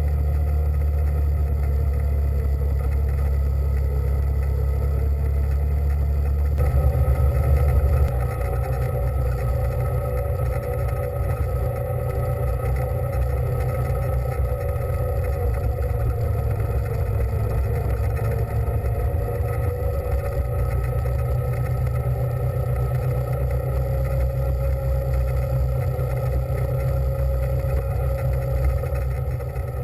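A small engine running steadily, its low hum shifting pitch about seven or eight seconds in.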